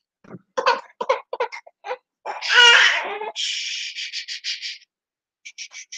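An infant makes a loud, high-pitched squeal about two and a half seconds in, then a quick run of breathy giggling pulses lasting about a second and a half. A few short, softer sounds come before it, and a few more faint pulses near the end.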